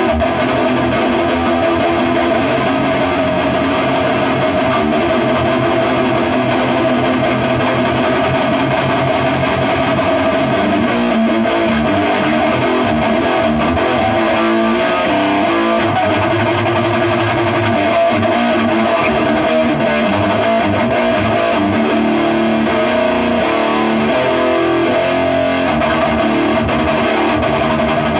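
Electric guitar played with distortion through a Blue Voodoo amp into a cab loaded with two Eminence 12216 speakers: a continuous run of held, changing notes.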